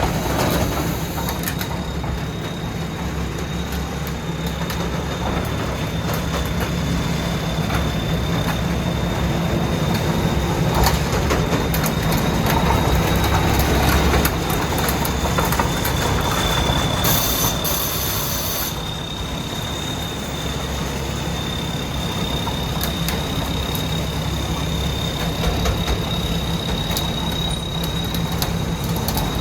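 Rice combine harvester running steadily under its 250-horsepower engine: a low drone with a steady high whine over it and scattered clicks and rattles. A brief hiss comes about two-thirds of the way through.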